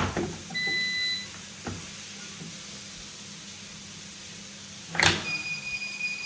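A short beep about half a second in. About five seconds in a sharp click, then the EMS Smartcell fire alarm starts its continuous tone, a steady high-pitched note.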